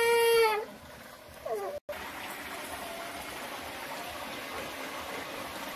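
A cat meowing once, a long call that rises a little and falls, at the start. After a sudden break, only a steady hiss of background noise.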